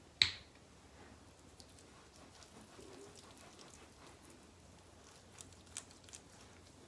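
Hands rubbing a gritty facial scrub with micro scrubbies over the face, a faint scattered crackling with occasional small taps. One sharp click or knock just after the start is the loudest sound.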